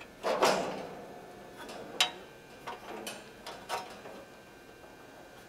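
Handling noise of igniter wires being plugged back onto a gas grill's igniter module: a scraping rustle of wire against the stainless steel tray, then small clicks, with one sharp click about two seconds in.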